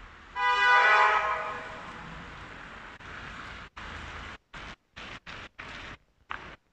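A single loud horn blast with one steady pitch and a rich, brassy set of overtones, sounding suddenly and fading out over about a second and a half as it rings on between the buildings. Later the background street sound drops in and out in short chunks.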